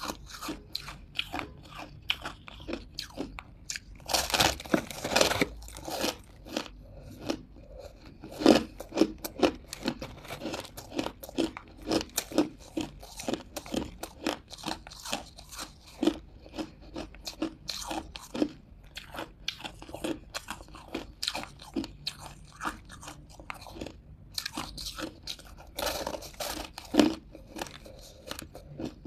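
Hard crunches of a person biting off and chewing buckwheat ice chunks. The crunches come one or two a second, with denser bursts of crunching about four seconds in and again near the end.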